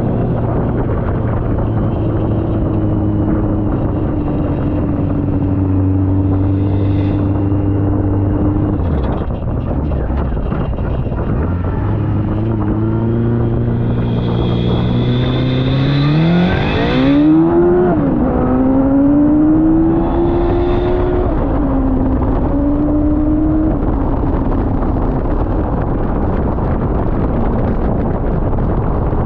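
Honda CBR1100 inline-four motorcycle engine powering an off-road buggy, running over a constant rough noise. Halfway through, the engine revs climb steeply, then drop sharply and hold lower before fading into the noise.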